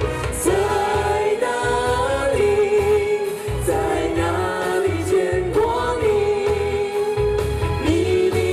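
Live pop singing: a mixed male-female vocal trio singing a medley of classic Chinese pop songs into microphones over amplified accompaniment with a pulsing bass line, the voices holding long notes.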